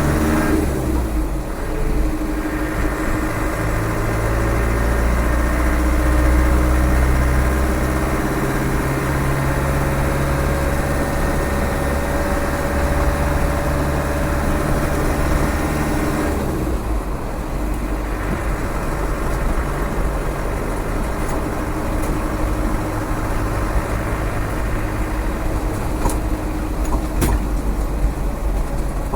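Land Rover 300Tdi four-cylinder turbo-diesel running under way, heard from inside the cab: a steady low diesel drone whose pitch shifts as the vehicle moves off and again about halfway through. Two faint clicks near the end.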